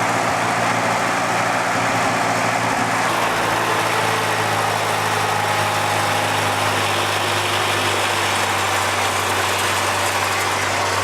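Tractor engine running steadily while driving the homemade backhoe's hydraulics. A higher, steady whine joins in about three seconds in.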